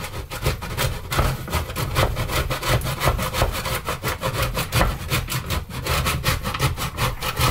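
Parmesan being grated by hand on a stainless-steel box grater: quick, even scraping strokes, about four a second.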